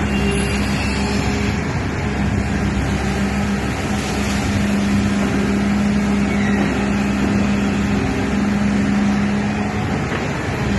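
Excavator's diesel engine and hydraulics running steadily, with a low steady hum that drops out briefly a few times.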